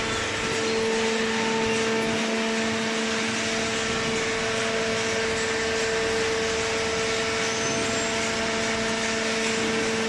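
Hydraulic power unit of an automatic horizontal paper baler running steadily: an electric motor and pump giving a constant-pitch drone over an even hiss.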